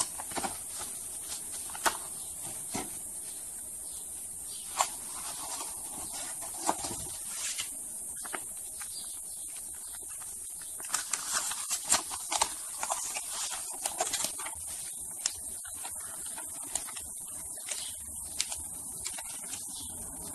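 Paper and tissue packaging rustling and crinkling as it is unfolded by hand, with scattered sharp crackles and taps, thickest around the middle, over a steady high hiss.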